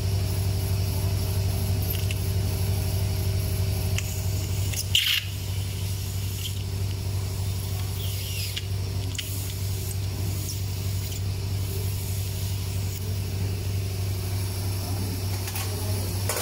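Steady low hum with a brief squeak about five seconds in and a few faint ticks.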